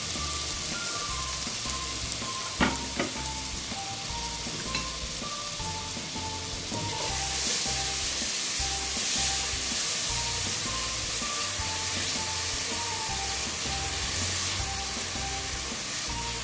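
Chopped onion, diced bacon and sausage sizzling in hot fat in a large pot, stirred with a spatula. The sizzle grows louder about seven seconds in. There are two sharp knocks near the start, and background music with a simple melody plays throughout.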